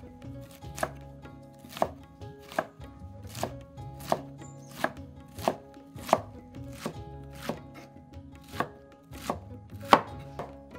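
Kitchen knife chopping winged beans on a wooden cutting board: steady strikes a little more than one a second, the loudest near the end.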